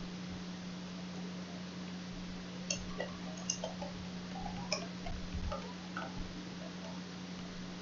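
Computer keyboard typing: a scattering of key clicks from about a third of the way in to three quarters through, over a steady low electrical hum.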